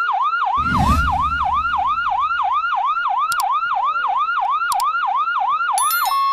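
Electronic emergency-vehicle siren in a fast yelp, its pitch sweeping up and down about three and a half times a second. Near the end it switches to a steady held tone.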